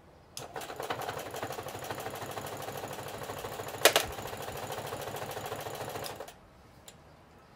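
Singer Heavy Duty sewing machine running, stitching leather: a steady, rapid mechanical clatter of the needle mechanism that starts about half a second in and stops about six seconds in, with one sharp, louder click about four seconds in.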